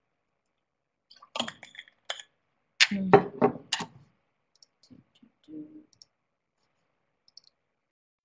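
Clicking and knocking from operating a computer, in two clusters about one and a half and three seconds in, the second louder, then a few faint taps.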